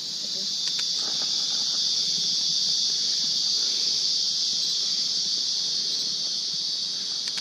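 Steady high-pitched buzzing of forest insects in chorus, swelling over the first second or so and then holding level.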